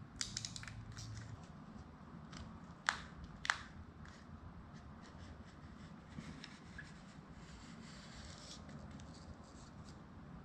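Utility knife trimming excess black tint film along the edge of a plastic headlight reflector: faint scraping and scratching, with two sharper clicks about three seconds in, half a second apart.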